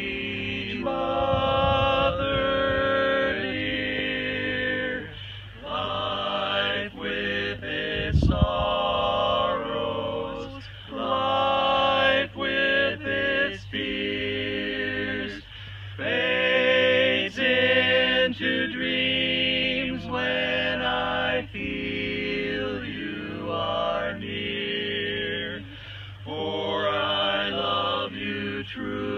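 Male barbershop quartet singing a cappella in four-part harmony (tenor, lead, baritone and bass), a slow ballad in long held chords with short breaks between phrases. A brief low thump about eight seconds in.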